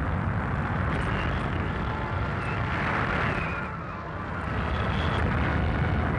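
Hurricane-force wind blowing as a steady, rushing roar, heaviest in the low end, easing slightly midway and then building again.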